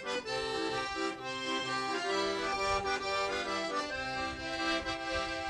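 Piano accordion playing a tune in full chords, with held notes under a changing melody.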